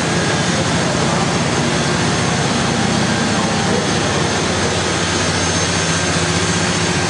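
Engine-room machinery of the steam sternwheeler Natchez running: a steady mechanical din with a low hum beneath a dense hiss.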